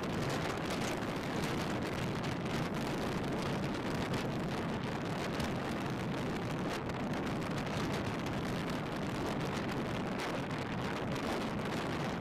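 Gale-force wind blowing on the camera microphone: a steady, heavy rush of wind noise that does not let up.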